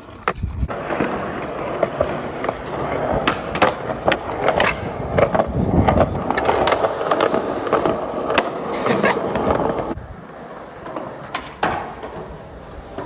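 Skateboard wheels rolling over concrete, a steady rumble broken by sharp clacks of the board. The rolling drops off and goes quieter about ten seconds in, with a few more clacks near the end.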